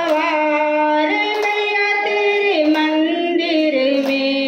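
A woman singing a Hindi devotional bhajan to the Mother Goddess into a microphone, holding a long drawn-out note that steps up and down in pitch. Hand claps keep time about every second and a half.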